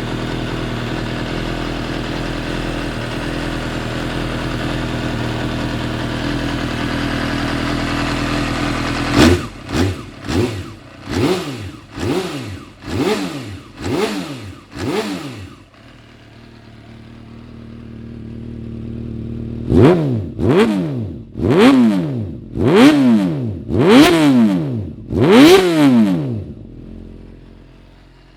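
Kawasaki ZXR400 398 cc inline-four engine idling steadily, then revved in short sharp throttle blips, about seven in a row, then a pause and about six more, before the sound falls away near the end.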